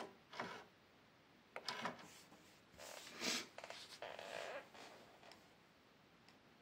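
Faint scattered clicks and short rustling noises, spread over the first four and a half seconds, then only a low hiss.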